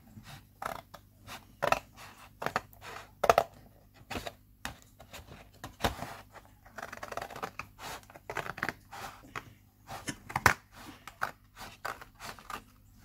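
Scissors cutting through thin cereal-box cardboard: a run of irregular short snips and crunches as the blades close along a cut line.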